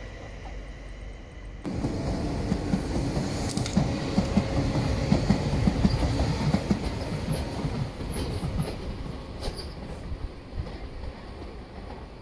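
Madrid Metro 6000-series electric train running past on open track: rapid wheel clatter over the rails with a few short high wheel squeaks, loudest a few seconds in and then fading as it moves away.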